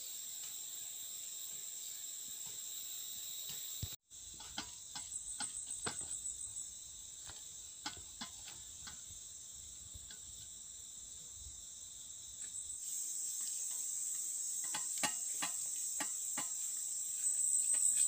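Insects chirring steadily at a high pitch, with pulsing trills that swell about five seconds in and again near the end. A few light clicks and knocks are scattered through. The sound cuts out for an instant about four seconds in.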